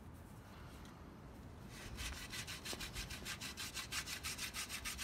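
Friction-fire hand drill: a wooden spindle spun back and forth between the palms, its tip grinding in a notch of a wooden hearth board. It starts about two seconds in and continues as fast, even rasps, several a second.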